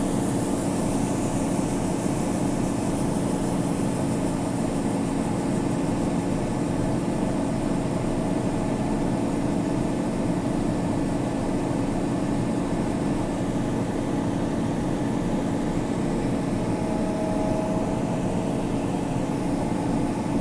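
Tractor engine and machinery running with a steady drone, heard from inside the closed cab while corn is being unloaded. A faint higher tone rises above the drone now and then in the second half.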